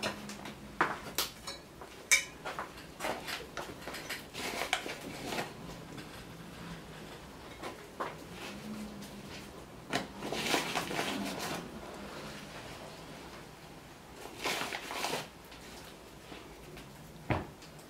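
Hands working bread dough in a plastic bowl: scattered soft knocks, slaps and rubbing against the bowl, in uneven bouts.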